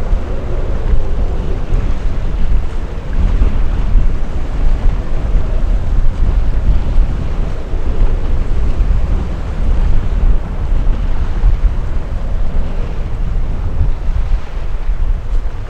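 Wind buffeting the microphone: a loud, gusting low rumble with a fainter hiss above it.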